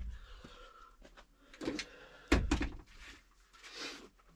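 A few short knocks and thuds on the van's plywood floor as hands and tools are set down on it, the loudest about two seconds in, with a soft rustle near the end.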